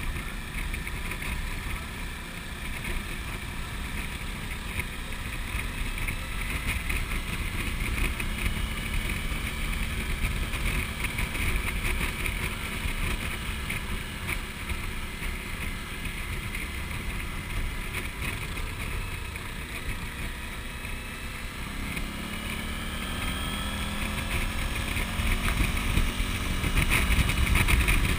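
Suzuki V-Strom V-twin motorcycle at road speed, heard from the bike itself: a steady rush of wind over the engine's drone. About two-thirds of the way through, the engine note climbs and grows louder as it accelerates.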